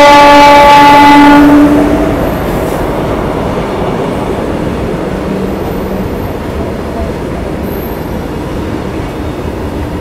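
A train's locomotive horn sounds one long, steady note and cuts off about two seconds in. After it comes the steady rumble of the train running along the track.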